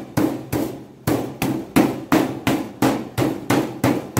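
Meat mallet pounding a boneless chicken leg flat between two plastic sheets on a plastic cutting board. The blows are steady, about three a second, with a short pause about a second in.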